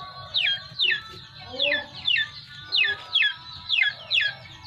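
A young animal's high-pitched peeping calls, repeated about twice a second, each sliding down in pitch. One lower, short whine comes about a second and a half in.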